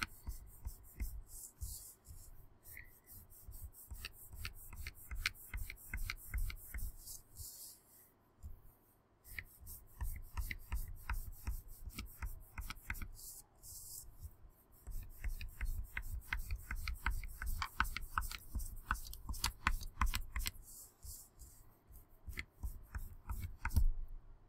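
Wax crayon scratching on paper in quick repeated strokes, each line drawn outward with a short rubbing sound and a soft thump on the table beneath, in runs with brief pauses. A louder click comes near the end.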